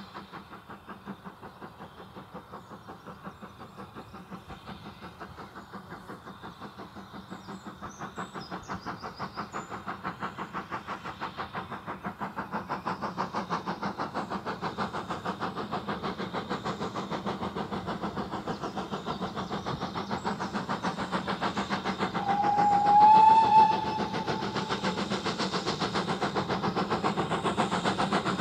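Steam locomotive working towards the listener, its exhaust beating in a steady rhythm that grows louder as it nears. Late on it gives one loud whistle of about a second and a half.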